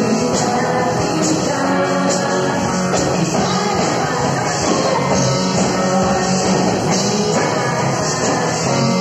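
Live worship band playing an upbeat, rock-style praise song: voices singing into microphones over electric bass and electric guitar, all through a PA system.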